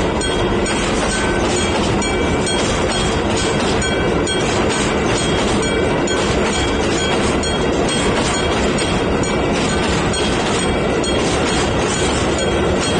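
Railway wagons rolling past over a level crossing, their wheels clattering over the rail joints, while the crossing's warning bell rings over and over.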